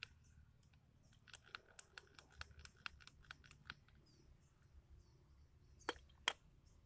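Small metallic clicks and taps in quick succession as a cutting disc and its flange nut are fitted by hand onto an angle grinder's spindle, then two louder knocks near the end as the grinder is set down on gravel.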